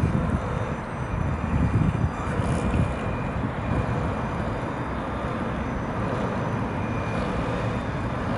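Wind rumbling on the microphone, with the faint steady whine of the model rescue boat's twin motors as it tows a stranded model boat.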